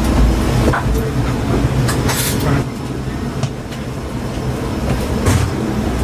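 Steady low rumble of a submarine's onboard machinery and ventilation, with a few short knocks as a sailor climbs a metal ladder through a hatch.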